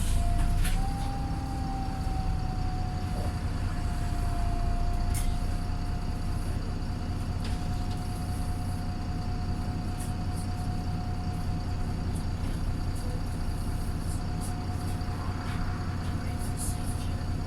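The diesel engine of a Wright Pulsar single-deck bus, heard from on board while the bus is moving. It has a steady, tired-sounding thrash over a low rumble, with a constant high whine and a few light rattles from the body.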